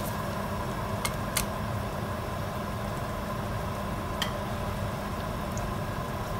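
Chopped garlic frying gently in oil in a nonstick frying pan over medium heat on a gas hob: a faint steady sizzle over a low hum, with a few small pops about a second in and again near the middle.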